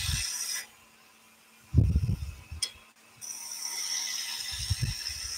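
Skew chisel cutting a small wooden spindle on a running wood lathe, a steady high hiss of the shearing cut that stops shortly before a second, longer cut begins about three seconds in. A dull knock comes about two seconds in, and a faint low hum sits underneath.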